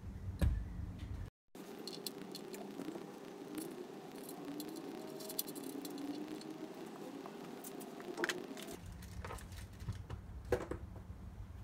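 Light clicks, taps and small rattles of metal parts being handled: a bolt, washer and nut being fitted through a mower's steel side plate and parts picked from a plastic box.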